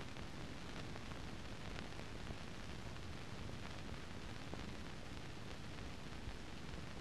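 Steady hiss with scattered faint clicks: the empty soundtrack of a silent archive newsreel, with no recorded sound on it.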